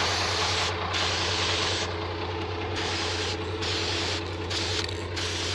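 Aerosol spray-paint can hissing in a series of short bursts, each about half a second to a second long with brief gaps between, as bales are marked; a steady engine hum runs underneath.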